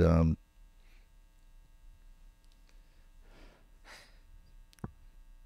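Pause in close-miked talk: a low, steady mains hum, with a soft breath into the microphone about three and a half seconds in and a small click near the end.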